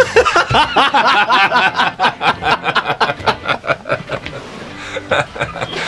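Hearty laughter in quick, repeated pulses that trail off near the end.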